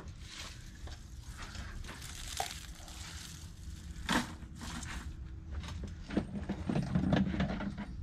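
Handling of electrical wire at a wire-stripping bench: bundles of wire rustling and being moved about, with a few light knocks and clatters, busiest near the end.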